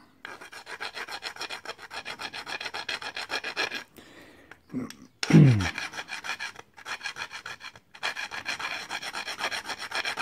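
Coarse-cut hand file rasping in quick back-and-forth strokes over the metal contact edges of a motorcycle brake pad and caliper, cleaning them up. The strokes stop briefly twice, and one louder scrape about five seconds in drops in pitch.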